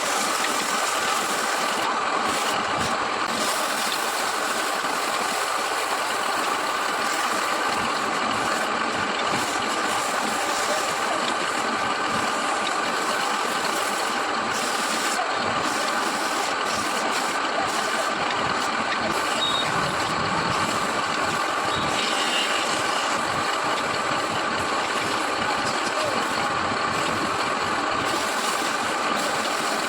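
Wood lathe running steadily, its motor and spinning workpiece giving an even mechanical hum.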